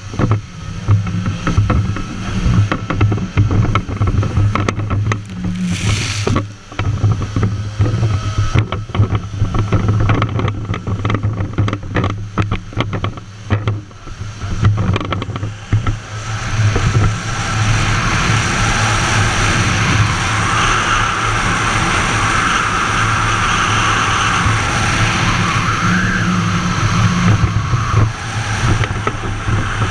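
Stand-up jet ski engine running under throttle with water spraying and slapping against the hull. For about the first half the sound chops up and down with splashes as the craft carves turns. After that it settles into a steady rush of water and wind over the engine drone as the craft runs straight.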